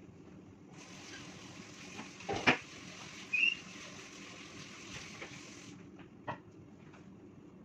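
A steady hiss lasting about five seconds, with one sharp knock near the middle and a short high chirp just after it, over a low hum.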